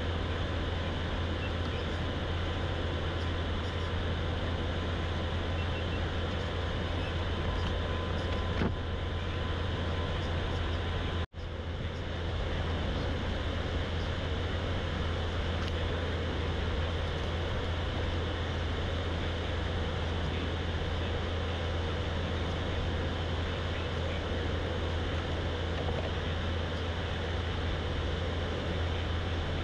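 Electric motor of a fishing kayak running steadily: a constant low drone with rushing noise over it. It drops out abruptly for an instant about eleven seconds in, then carries on unchanged.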